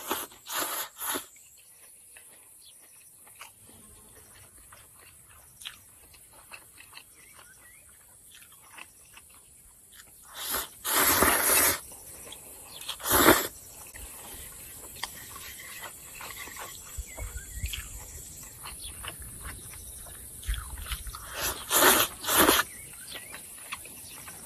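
A person slurping noodles in loud bursts: a couple of short slurps near the start, a long one after about ten seconds, a sharp one just after, and two more near the end, with quiet chewing in between.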